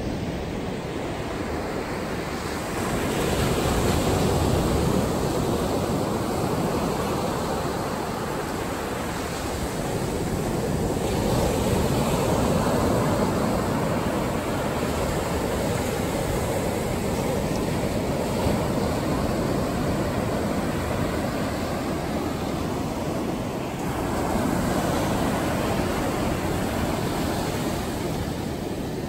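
Ocean surf: small waves breaking and washing up a sandy beach, a steady rush that swells and eases every several seconds.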